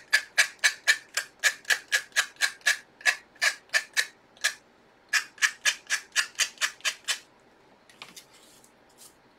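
Sanding block rubbed in quick back-and-forth strokes, about four a second, against the edge of a small craft ornament to take off the overhanging material. The strokes pause briefly midway and stop about seven seconds in, leaving a few faint taps.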